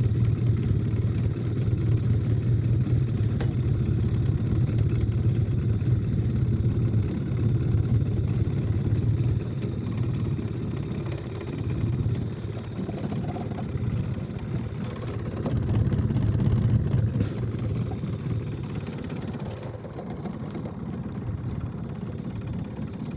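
Outboard motor running steadily at trolling speed, a low rumble that swells and dips in loudness.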